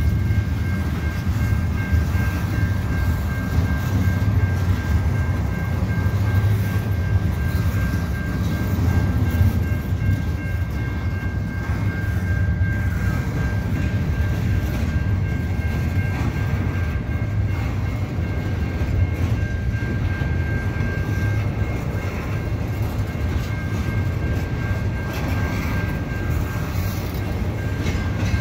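Double-stack intermodal well cars rolling slowly over a level crossing: a steady low rumble of wheels on rail. A high, even tone from the crossing's warning bell rings over it throughout.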